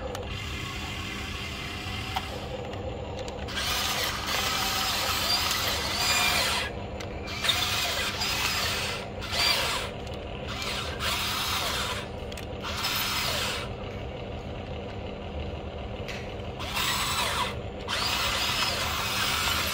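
Huina remote-control excavator's electric motors whining in stop-start runs of one to three seconds as the arm, bucket and upper body move, the pitch gliding up and down within each run. A steady low hum sits underneath.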